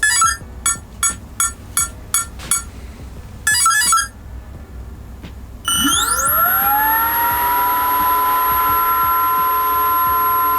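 Electronic speed controller arming beeps: a quick string of short electronic beeps and then a longer one. About six seconds in, a Schübeler DS-68 110 mm electric ducted fan spools up with a rising whine and settles into a steady high-pitched run, spun from a servo tester to check its rotation direction.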